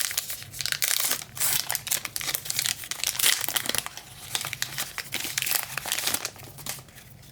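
Plastic trading-card pack wrapper crinkling and tearing as a pack is ripped open by hand: a dense, irregular run of crackles that dies down near the end.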